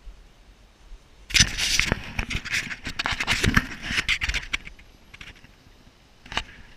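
Handling noise from a camera being moved about and laid down on sand: irregular scraping, rubbing and knocks against its body for a few seconds, then a lull and a single knock near the end.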